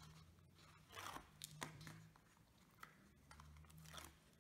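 Faint rustling and crinkling of the backing liner being peeled off double-sided adhesive tape on a piece of card, a few short scratchy rasps.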